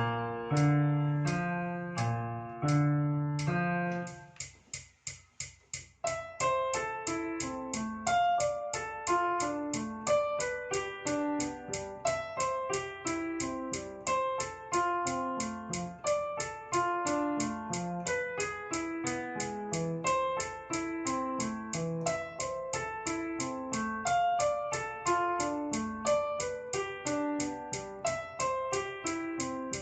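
Piano music played as a quick, even run of notes. It drops to a quiet, sparse passage about four seconds in, then the full playing returns.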